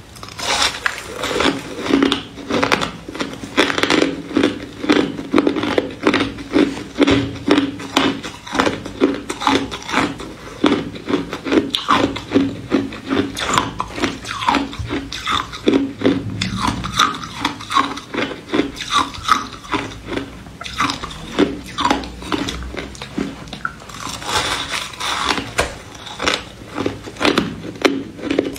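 A person biting and chewing ice: a rapid, continuous run of sharp crunches, several a second.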